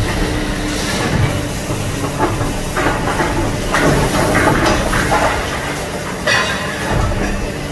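Excavator engine running steadily while its hydraulic Daequip crusher attachment breaks concrete: irregular crunching and cracking of concrete and steel rebar over the engine drone. A hiss from the water spray laying the dust runs underneath.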